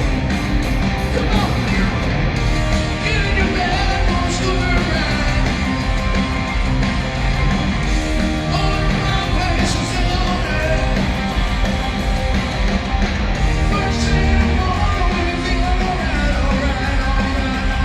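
Rock band playing live, with a singer's loud vocals over electric guitars and drums.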